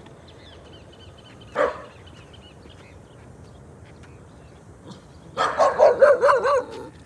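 Dog barking: one sharp bark about a second and a half in, then a quick string of barks near the end.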